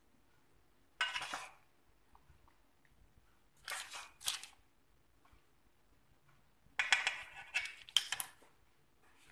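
Baking paper crinkling and a baking pan being shifted by hand, in three short bursts: about a second in, around four seconds, and a longer stretch near the end.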